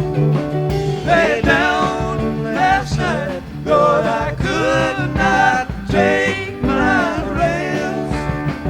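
Background music: a song with a sung vocal over guitar and a steady beat.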